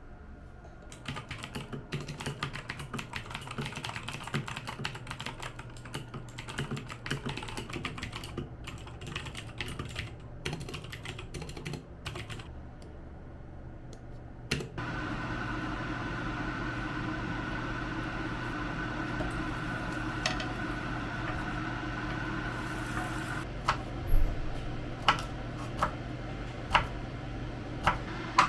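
Typing on a computer keyboard, quick and uneven keystrokes for about fourteen seconds. It then cuts abruptly to a steady appliance-like hum with a held tone, and near the end a few sharp taps land about a second apart.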